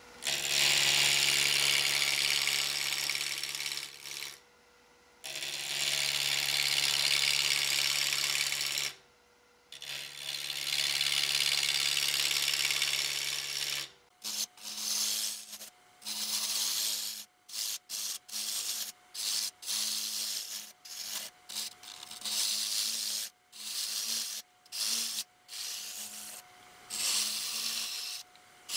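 Wood lathe spinning a spindle blank while a turning tool cuts into it, over the lathe motor's steady hum. The first half holds three long cuts with short pauses between them; the second half is many short cuts, each a second or less, as the blank is shaped.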